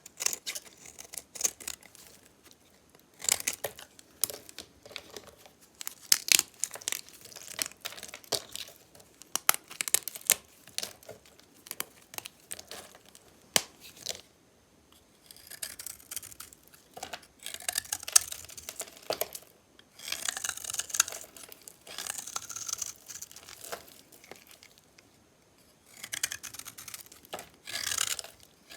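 Blade cutting through metallic-painted dry soap: bursts of sharp crackling snaps at first, then longer scraping, crumbling cuts separated by short pauses.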